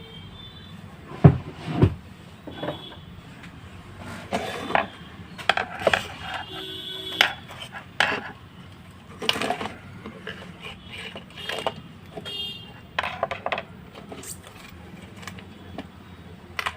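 Irregular clicks, taps and knocks of hands-on wiring work on an electrical switchboard, handling wires and the socket and switch fittings, with two sharper knocks about a second in.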